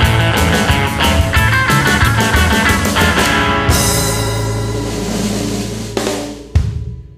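A rock 'n' roll band with drum kit and guitar finishing a song. Busy drumming gives way about three and a half seconds in to a held final chord under a cymbal wash. Two last drum hits near the end close it, and the chord dies away.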